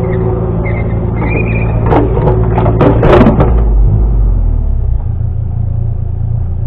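Excavator engine running steadily, with a cluster of metal clanks and knocks about two seconds in. The engine note drops lower at about five seconds.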